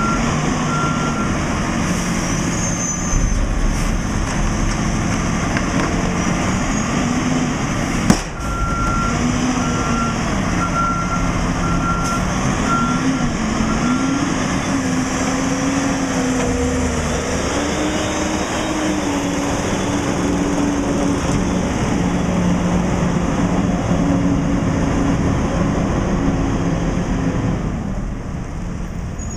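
McNeilus Contender front-loader garbage truck maneuvering, its engine pitch rising and falling. Its backup alarm beeps briefly at the start, then again for about five seconds after a sharp click. The engine fades as the truck pulls away near the end.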